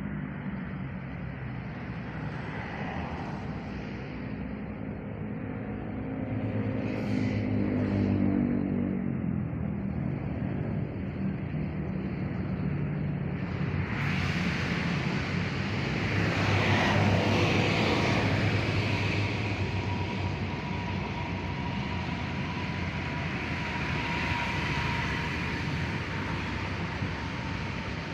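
Motor-vehicle traffic: a steady engine rumble with louder passes swelling up twice.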